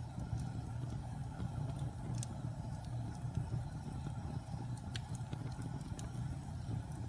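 Wood fire burning in a fireplace: a steady low roar of the flames with scattered sharp crackles and pops, the clearest about two seconds in and about five seconds in.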